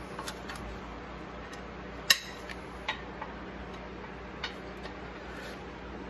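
A few scattered sharp metallic clicks and clinks from a half-inch ratchet and the brake caliper bracket being worked loose, the loudest about two seconds in, over a steady low hum.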